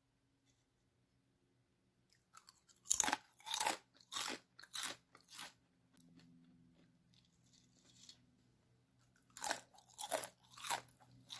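Crispy homemade potato chips being bitten and chewed: a run of short, sharp crunches starting about three seconds in, the first the loudest, then a pause and a second, fainter run of crunches near the end.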